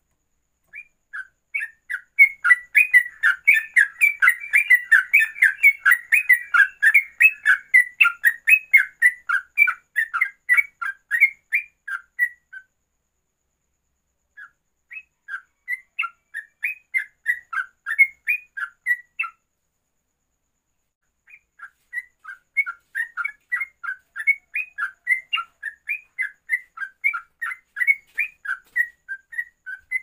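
Yellow-vented bulbul (trucuk) singing its fast 'ropelan' song: rapid runs of short whistled notes, about five a second, in three long bouts split by two short pauses.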